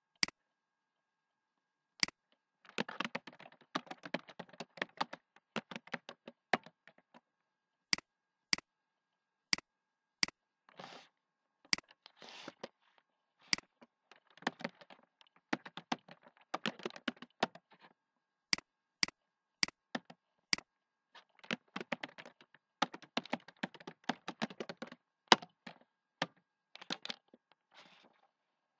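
Typing on a computer keyboard in three bursts of rapid keystrokes, with single sharp mouse clicks spaced out between the bursts.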